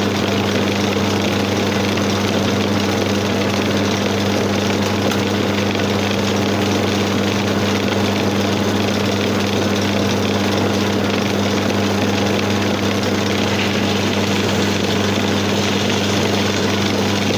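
Electric motor of a homemade wood lathe running steadily with a constant hum, while a hand chisel cuts a spinning wooden spindle. The cutting noise gets a little brighter and harsher in the last few seconds.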